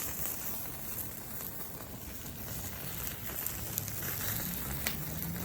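Plastic coffee maker on fire, burning with a steady crackle and hiss and a few sharper pops. The fire comes from its heating element overheating with the thermal cutout and thermal fuse disabled.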